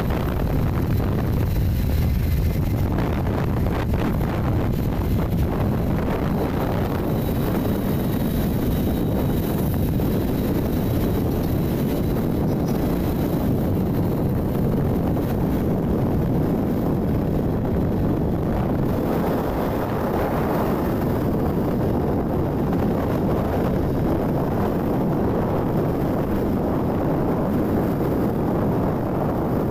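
Wind buffeting the microphone on a moving motorcycle, a steady rushing noise with the motorcycle's running and road noise underneath.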